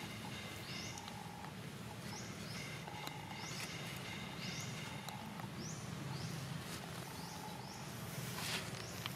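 Outdoor ambience of repeated animal calls: a short rising chirp about once a second and a brief steady note about every two seconds, over a low steady hum. A louder rustling swell comes near the end.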